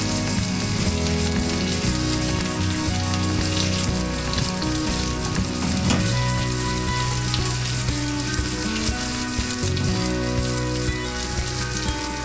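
Salmon fillets frying in butter on a grill pan, with a steady sizzle throughout.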